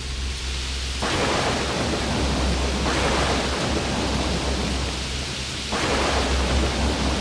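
Heavy rain falling with a low rumble of thunder underneath. The rain's hiss swells suddenly about a second in and again near the end.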